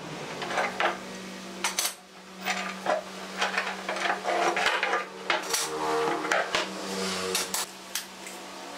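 Metal pipe clamps being loosened and taken off a glued-up wooden panel: repeated clanks, clicks and knocks of the clamp jaws and pipes against the workbench, over a steady low hum.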